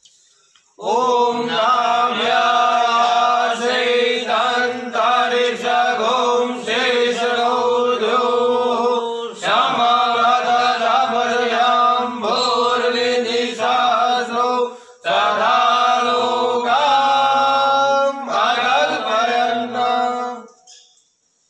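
Devotional chanting of a hymn or mantra, with long held notes over a steady drone. It starts about a second in, breaks off briefly about two-thirds of the way through, and stops near the end.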